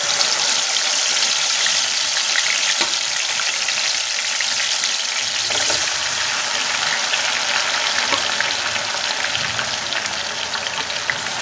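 Yogurt-marinated chicken pieces sizzling loudly in hot oil, a steady dense frying hiss, with a few light knocks along the way.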